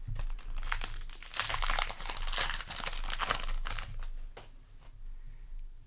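Foil booster-pack wrapper crinkling and crackling as it is handled, densest from about a second in until about four seconds, then dying down.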